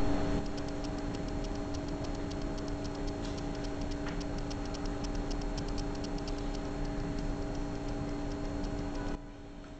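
A steady hum with a fast, even ticking over it; both cut off suddenly about nine seconds in.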